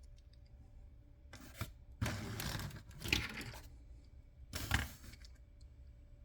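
Three short bursts of tearing or rustling, as of toy packaging being handled or opened. The longest comes about two seconds in and lasts over a second and a half; a shorter one follows near the end.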